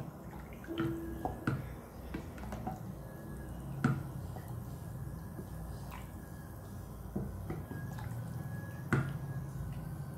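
Hot water with chicken in a cooking pot: liquid dripping and plopping, with a few sharp knocks, the loudest about four seconds in and near the end.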